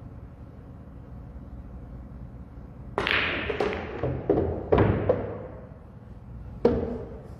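Pool balls clacking as a break shot opens the racked pack: a loud crack of impact about three seconds in, then a quick run of ball-on-ball clicks and thuds off the cushions. One more sharp clack comes near the end.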